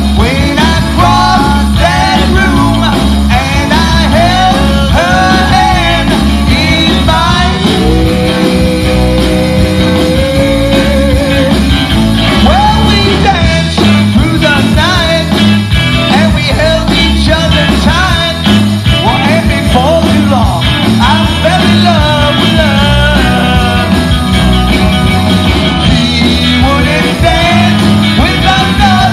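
Live rock band playing loudly on stage: electric guitars, bass guitar and a drum kit, with a steady beat.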